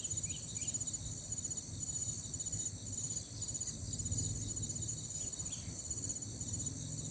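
Crickets chirping in repeated short, high pulsed trills over a steady low rumble.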